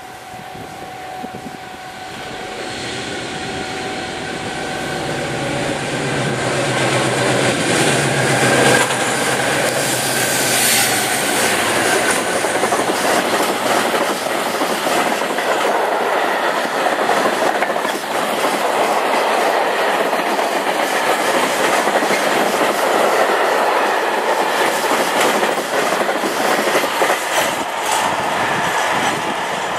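Two Colas Rail Class 56 diesel locomotives hauling a long freight train of covered steel wagons past. The engines grow louder over the first several seconds as they approach, then the wagons keep up a steady clickety-clack over the rail joints.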